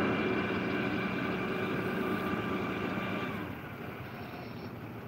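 A motor vehicle's engine running with a steady pitched hum, which drops away about three and a half seconds in, leaving a quieter steady background.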